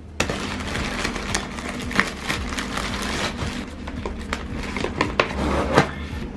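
Close-up handling noises: a quick run of small clicks, knocks and rustling over a steady low hum.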